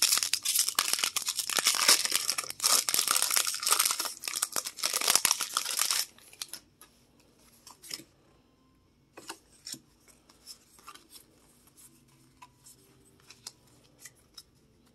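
A Pokémon TCG booster pack's foil wrapper crinkling and tearing as it is opened, dense and crackly for about six seconds. Then it stops, leaving only scattered soft clicks of the cards being handled.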